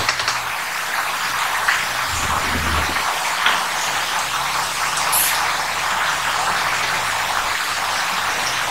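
A steady hiss with a faint low hum underneath.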